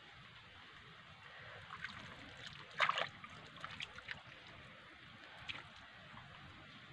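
A bare hand groping and digging in soft wet mud and shallow water, giving faint squelches and small splashes; the loudest is a short cluster about three seconds in.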